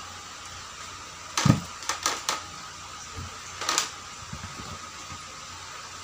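Hands handling nylon line and materials on a plastic-covered work table: a quick cluster of short rustles and scrapes about a second and a half in, and another pair near four seconds, over a steady hum.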